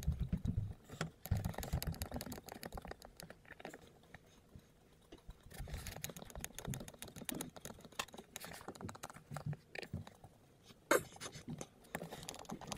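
Small screws being driven by hand with a hex driver into the plastic beadlock wheel of an RC crawler tire: faint scratchy clicking and rubbing of the tool, screws and rubber, with one sharper click near the end.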